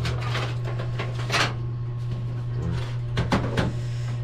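Steel desktop computer case and loose parts being handled, with metallic scrapes and knocks about a second in and a quick cluster of knocks near the end. A steady low hum runs underneath.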